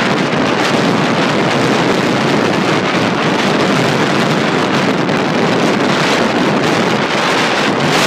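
Steady, loud wind blowing across the microphone, mixed with the wash of a choppy, wind-driven sea.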